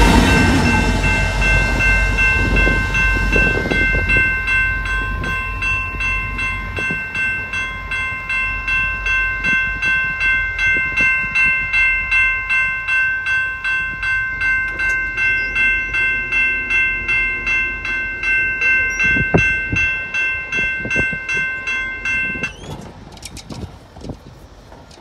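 Railroad crossing bell ringing steadily at about two strikes a second, then cutting off suddenly near the end. Over the first few seconds the low rumble of the passing freight train runs under it.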